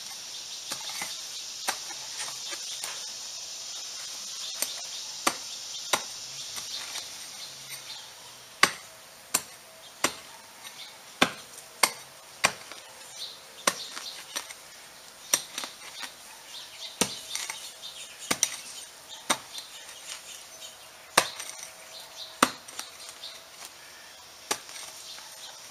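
Long-handled hoe chopping into hard dirt and roots, a sharp strike about once a second at an uneven pace.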